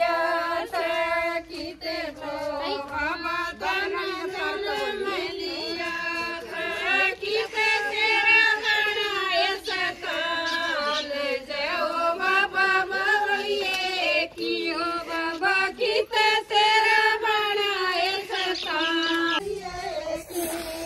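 Group of women singing a Haryanvi folk song together, in long, wavering phrases with short breaks for breath.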